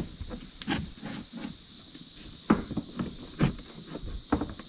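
Plastic bumper cover creaking and popping as a heated dent is pushed out from behind, in a few separate irregular pops over a steady hiss.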